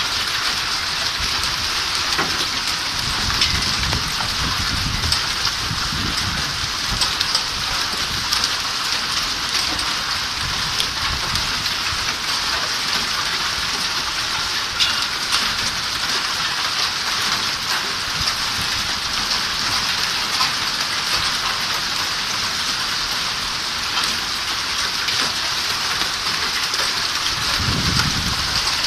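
Steady hiss of heavy rain with scattered faint ticks. A low rumble comes and goes in the first several seconds and again near the end.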